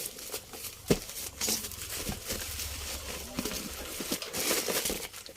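Packaging crinkling and rustling as a parcel is unwrapped, with a sharp click about a second in.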